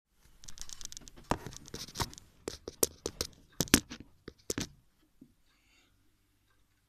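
Handling noise from a phone being moved and set in place: rubbing and scraping with a string of sharp knocks and clicks against the microphone. It dies away a little before five seconds in, leaving only faint small movements.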